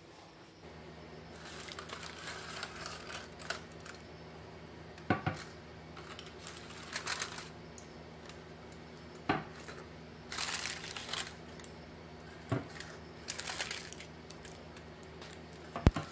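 Aluminium foil crinkling in several bursts as it is handled on glass pudding jars, and four sharp clinks spread through as the glass jars are set down on a metal wire cooling rack. A low steady hum runs underneath from about half a second in.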